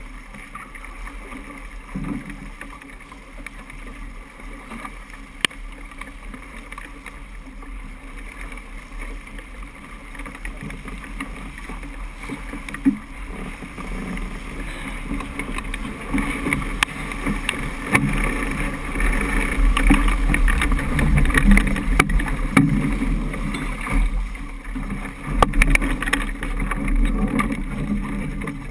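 Water rushing and splashing along the hull of a Niagara 26 sailboat under sail, with wind buffeting the microphone; it grows louder about halfway through. A couple of sharp knocks come in the first half.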